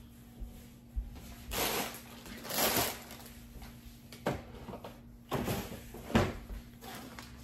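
Kitchen handling: plastic bags of Brussels sprouts rustling twice, then set down on the counter, with a few sharp knocks.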